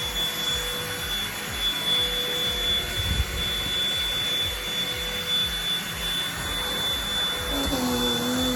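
Deerma VC811 cordless handheld vacuum cleaner running with a steady high whine over an uneven low rumble as it is handled.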